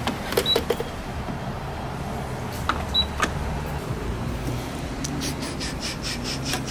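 Fuel pump being operated: short high beeps from the pump as a grade button is pressed, then clicks and knocks of the nozzle being lifted and pushed into the car's filler neck, with a run of quick clicks near the end. A steady low hum runs underneath.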